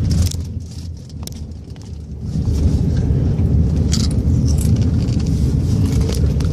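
Low, steady rumble of a car driving, heard from inside the cabin. It drops for a short while about half a second in and comes back after about two seconds, with a few light rattles over it.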